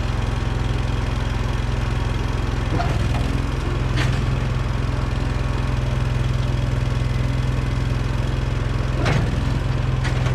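Case 1816 skid steer's engine running steadily, with two brief clanks, about four and nine seconds in.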